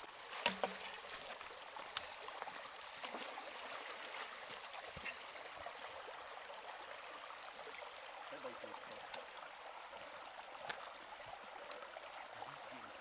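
Shallow forest stream running over stones, a steady rush of water, with a few short sharp clicks.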